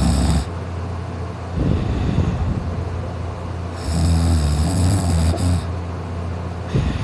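A person sleeping on their back, snoring loudly. One long buzzing snore starts about four seconds in and lasts nearly two seconds, with softer breathing between snores. The tail of one snore is heard at the start and the next begins near the end.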